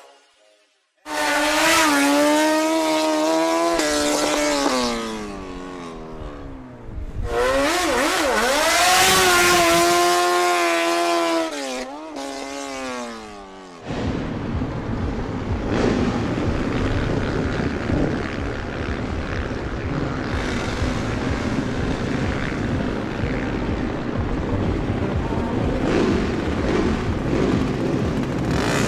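About a second of silence, then small motorcycle engines revving high at a drag-strip start line in two long pulls, the pitch wavering and then sliding down. From about halfway, the engines keep running steadily at the line with a denser, noisier sound.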